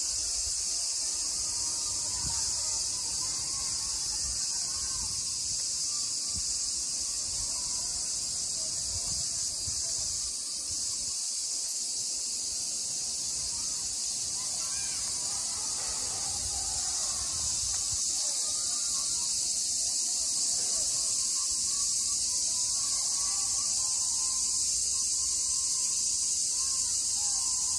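A steady, high-pitched chorus of cicadas singing in the trees, holding unbroken throughout.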